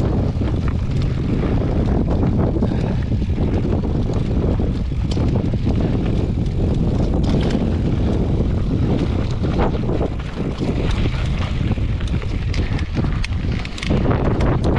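Wind buffeting the microphone of a moving camera, a loud steady rumble, with scattered short knocks and rattles throughout.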